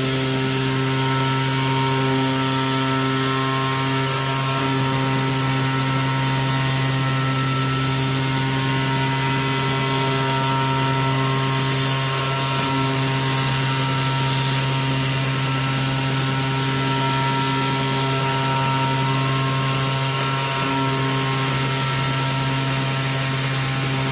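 AOKE DCZ70 CNC flatbed cutter running as it cuts gasket material: a steady machine hum with a high whine over a hiss, barely changing, with slight shifts in tone a few times.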